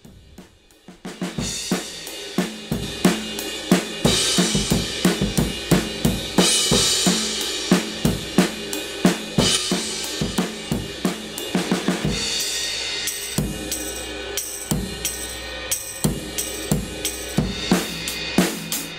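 A recorded drum-kit beat with cymbals plays back through digital compressor and analog-style saturation plugins. It starts about a second in.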